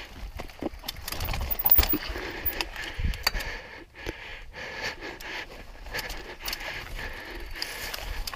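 Mountain bike rolling down a steep rocky trail: tyres crunching and bumping over rock and gravel, the chain and bike rattling, with a string of irregular knocks and two heavier thuds about two and three seconds in.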